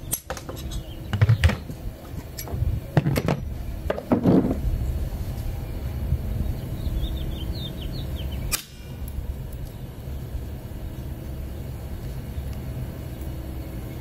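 Several dull knocks in the first few seconds, then steady low background noise with a brief run of high chirps.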